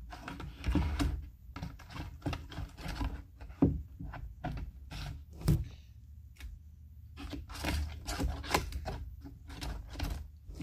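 Homemade slime being stretched and kneaded by hand, giving irregular sticky clicks and pops, a few louder than the rest.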